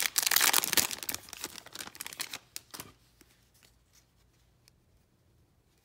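A foil 2021 Panini Playoff football card pack being torn open, the wrapper crinkling and crackling loudly at first and fading out within about three seconds.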